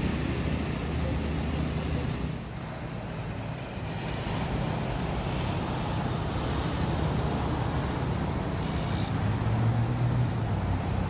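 City bus engine running as the bus pulls toward the camera, its low hum growing louder near the end, over steady road traffic noise.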